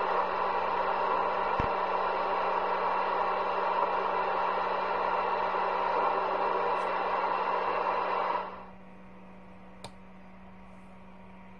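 CB radio receiver hissing with band static through its speaker, with no station coming through. The hiss cuts off suddenly about eight and a half seconds in, leaving a faint low hum, and a single click follows about a second later.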